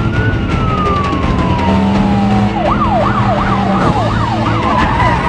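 Police car siren in a long wail, one slow rise and a long fall, then switching about two and a half seconds in to a fast yelp that warbles up and down about three times a second, over low car-engine rumble.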